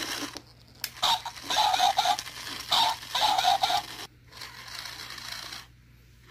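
Battery-powered plush walking puppy toy: its small motor and gears whir, then it gives a run of short electronic barks through its little speaker about a second in, and the motor whirs again near the end.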